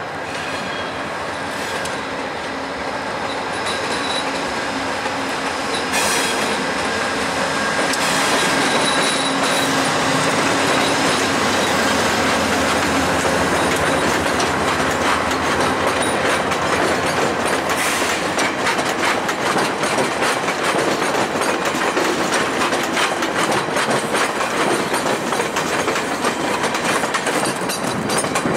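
A VIA Rail passenger train pulling out behind a GE P42 diesel locomotive. The train grows louder over the first several seconds as it draws near, then its stainless-steel coaches roll past with a fast, steady clickety-clack of wheels over rail joints and switches.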